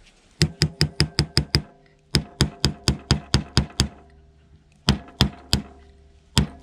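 Small screwdriver being tapped and jabbed into the sealed seam of a plastic plug-in transformer casing: runs of sharp knocks, about five a second, with short pauses between runs, each knock ringing briefly in the hollow case. The seal does not give.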